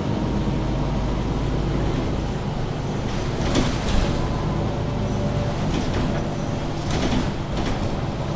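MAN Lion's City G articulated city bus under way, its diesel engine running steadily over low road rumble. A few short knocks or rattles come about three and a half seconds in and again at about seven seconds.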